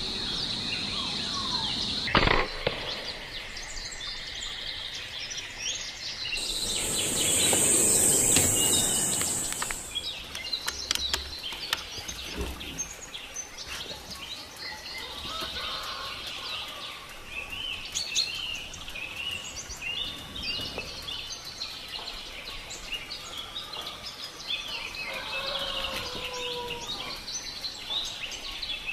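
A single sharp rifle shot about two seconds in. A few seconds later comes a loud hissing rush of noise, and then many small birds chirp and whistle.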